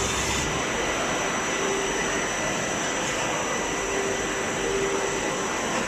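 Swiss-type CNC lathes running on a machine-shop floor: a steady noise with faint high steady whines, and a fainter lower whine that comes and goes twice.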